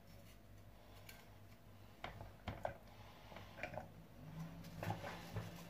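Faint, scattered taps and clicks of food and utensils being handled at a kitchen counter as tomato pieces are put into a blender chopper bowl.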